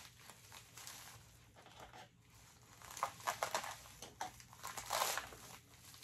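Plastic bag crinkling as it is unrolled and opened by hand, in irregular rustles that grow louder from about halfway through.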